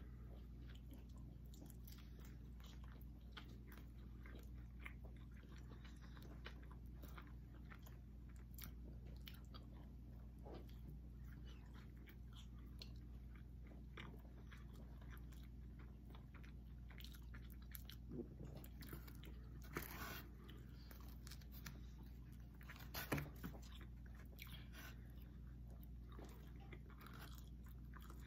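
Faint mouth sounds of people chewing and biting food, with scattered soft clicks and a few louder bites in the second half, over a steady low hum.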